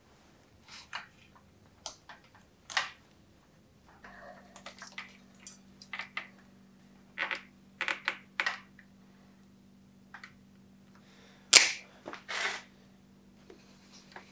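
Small metal clicks and snaps of a steel brake cable and a hand tool being worked at a bicycle's cantilever brake, with one sharp snap near the end that is the loudest.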